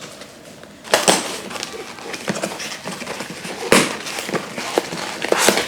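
Parcel packaging being torn open and handled: dense crinkling and rustling of plastic wrap and cardboard, with scattered sharp crackles and a few louder snaps, starting about a second in.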